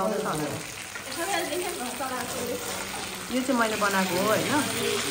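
Food frying and sizzling in a pan, a steady hiss, with a person talking over it in short stretches.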